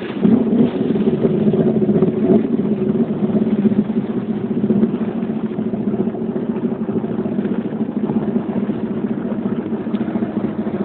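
Motorboat engine running steadily under way, a little louder for the first couple of seconds.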